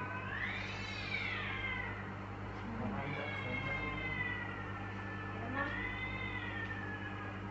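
A cat meowing three times in long drawn-out calls: one rising and falling, a longer one slowly falling in pitch, and another rising and falling near the end, over a steady low hum.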